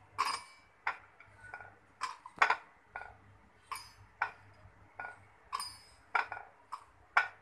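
Cashews, almonds and pistachios dropped by hand into a stainless steel mixer-grinder jar: a string of irregular clinks and ticks, some ringing briefly off the steel.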